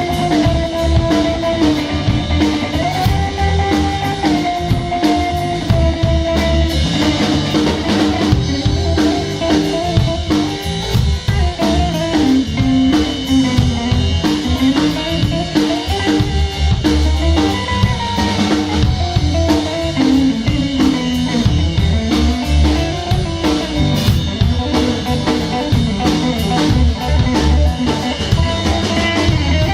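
Instrumental music: a band with a drum kit keeping a steady beat under guitar and bass, with a melody line moving over them.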